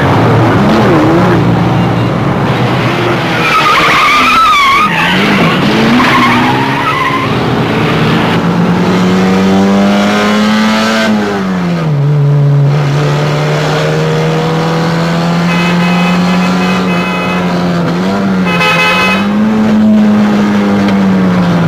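Car engines revving hard, the pitch rising and falling with throttle and gear changes, with tires squealing a few seconds in and again briefly near the end.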